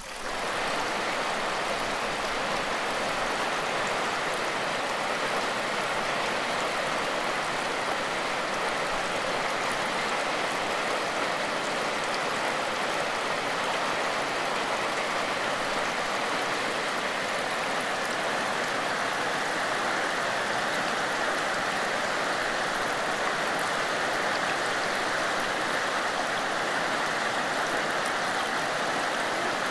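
Shilabati River in flood, rushing and churning over rocky rapids: a steady, even rush of turbulent water.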